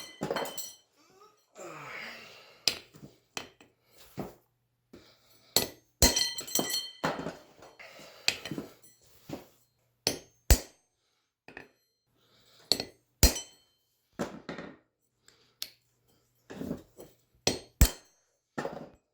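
Hammer blows on a punch into a steel railroad spike, marking dice pips: single sharp metallic strikes one to a few seconds apart, several with a short high ring, between quieter handling clinks.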